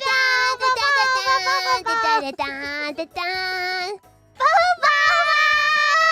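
High-pitched singing of a short tune in held notes. It breaks off briefly about four seconds in, then holds one long note.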